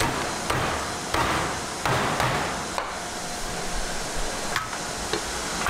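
A Chinese cleaver chopping through a raw fish head onto a thick wooden chopping block: about four heavy chops in the first two and a half seconds, then quieter knocks and handling of the cut pieces.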